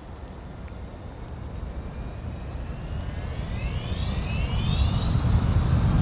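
An engine-like rumble growing steadily louder, with a whine that rises in pitch a few seconds in and then holds steady.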